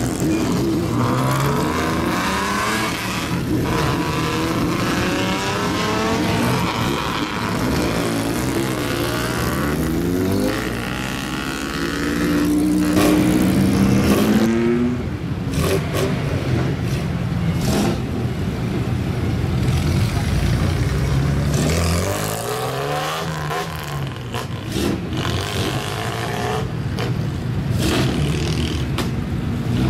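Straight-piped exhausts of old lowered Japanese cars revving hard as they pull away at low speed, the engine note climbing and dropping again and again as one car after another blips its throttle.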